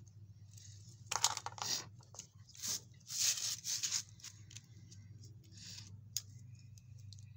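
Small plastic toy-car parts being handled and fitted by hand: a few brief scraping and rustling noises with small clicks, the loudest about a second in and again around three seconds in, over a steady low hum.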